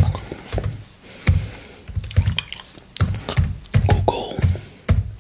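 Close-miked tongue licking orange off a clear glass plate: an irregular string of sharp mouth clicks and smacks, a few each second.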